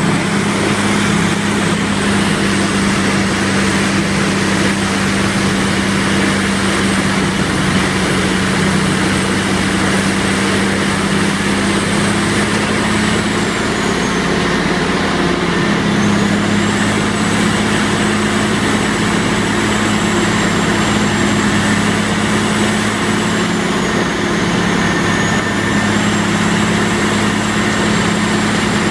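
Heavy diesel machinery running steadily: a mobile wood grinder's engine and a wheel loader working the chip pile. Over the engines there is a thin high whine that dips in pitch and comes back twice.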